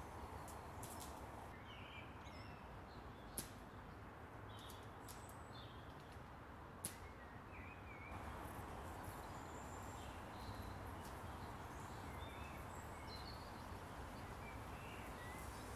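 Two faint sharp shots about three and a half seconds apart from a Novritsch SSG10 spring-powered bolt-action airsoft sniper rifle heard from a distance. Birds chirp now and then over a steady outdoor hush.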